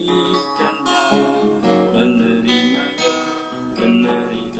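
A man singing a slow nasyid song in Indonesian to a strummed guitar, holding the word "kebaikan" early on before the guitar carries on alone for a few seconds.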